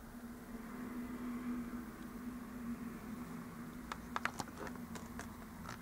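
A large plastic dragon figure being handled: a few light clicks and taps about four seconds in, over a low steady hum.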